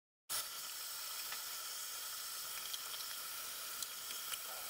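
Tap water running into a bathroom sink and down its pop-up drain, a steady hiss with a few faint ticks of splashing, flushing the drain just cleared with a hair snake. It starts abruptly a moment in.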